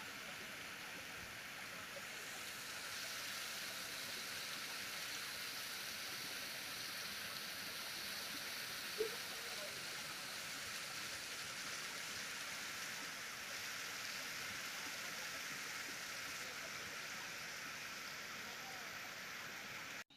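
Steady rushing of running water, with one brief sharp sound about nine seconds in. The water noise cuts off abruptly at the end.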